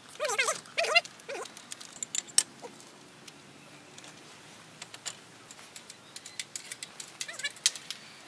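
A few short animal calls in the first second, then scattered light clicks and clinks.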